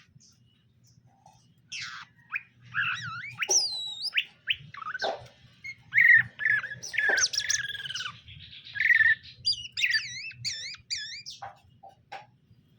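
Cucak ijo (green leafbird) calling and warbling: a busy run of chirps, rising and falling whistles and slurred notes, loudest in the middle, thinning to a few short chirps near the end. A faint steady low hum runs underneath.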